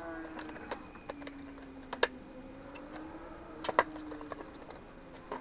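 Irregular clicks and snaps of a CD/DVD drive's plastic and metal parts being prised apart by hand, the sharpest about two seconds in and again near four seconds. Under them runs a faint low hum that slowly wavers in pitch.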